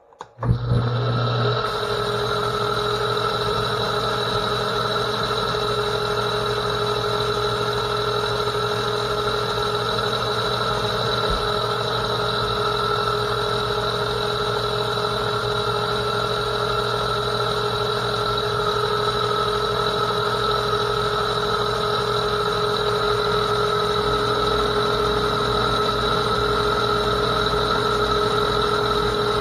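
Metal lathe starting up about half a second in, then running steadily with a constant whine while a CNMG carbide insert takes a turning pass on a metal bar.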